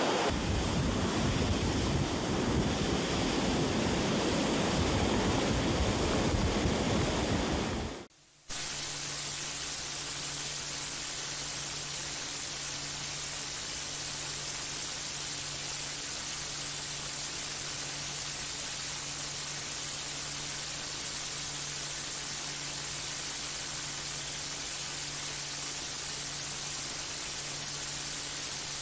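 Floodwater rushing through a concrete spillway, a loud rough noise. About eight seconds in it cuts off suddenly, and a steady hiss with a faint low hum follows.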